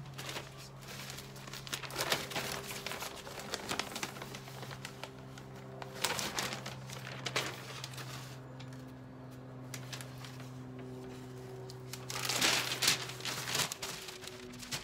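Sheets of newspaper rustling and crinkling as they are handled and spread for wrapping, with a louder burst of crinkling about twelve seconds in.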